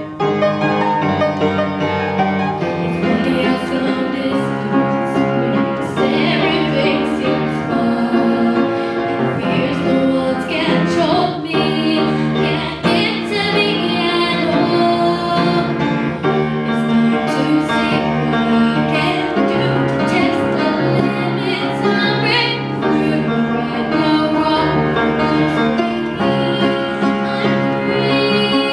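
A young girl singing solo into a microphone, amplified through a PA, with live upright piano accompaniment.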